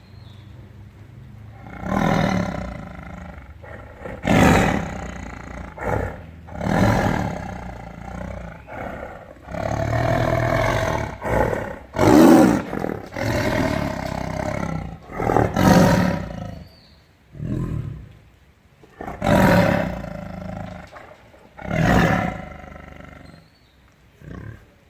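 Tiger roaring: a dozen or so loud calls in a row, most about a second long, one held for around two seconds near the middle.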